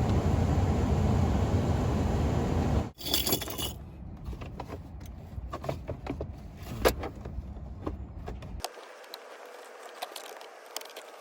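Steady loud rumbling noise that cuts off abruptly about three seconds in. It is followed by scattered sharp clicks, knocks and rattles from small hard objects being handled.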